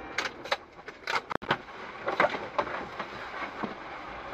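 Car driving, heard from inside through a dash cam: steady road and engine noise with irregular sharp clacks and knocks.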